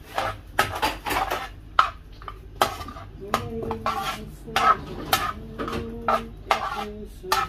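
A perforated metal spatula scraping and clinking against a metal pan in repeated, irregular strokes while stirring boiled chana dal in oil for dal fry.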